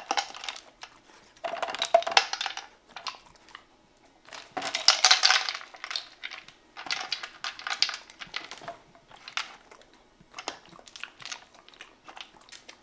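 A corgi eating dry kibble from a plastic puzzle feeder: several bursts of clattering, crunching clicks a second or two long as kibble spills out of the tipped tubes and is chewed, then scattered single clicks near the end.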